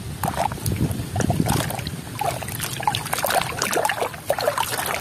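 Hands sloshing a plastic toy mask around in a basin of muddy water: irregular splashing and swishing water.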